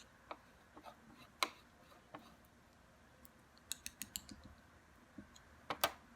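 Small plastic mount parts being handled on a workbench, giving light scattered clicks and taps, with a quick run of clicks about two-thirds of the way in and a loud double click near the end.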